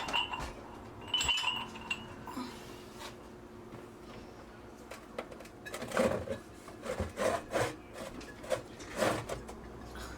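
Irregular rubbing and scraping strokes while a refrigerator is being cleaned out, with a brief ringing squeak near the start.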